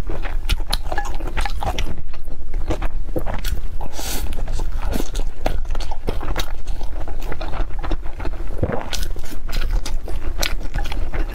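Close-miked eating sounds: a person chewing and biting food, with many short, irregular mouth clicks and crackles.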